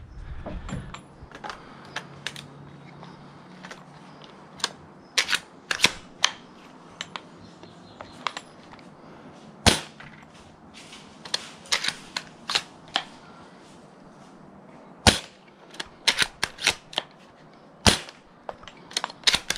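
Spring-powered bolt-action airsoft sniper rifle being worked and fired: a string of sharp mechanical clicks and clacks in irregular clusters from the bolt, with a few louder snaps of shots among them.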